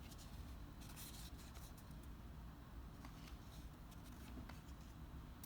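Faint scrapes and rustles of baseball cards being slid and flipped through by hand. The loudest stretch comes about a second in, over a steady low background hum.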